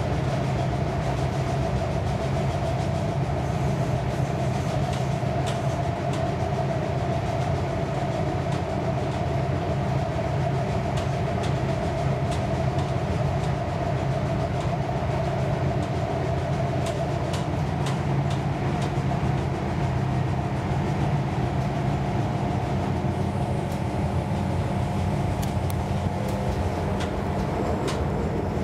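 Passenger train carriage interior while running: a steady low rumble and hum, with a few faint clicks here and there.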